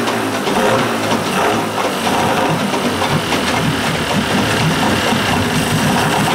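Old two-stroke outboard motor running steadily with its air silencer off, being fogged with storage oil for winter.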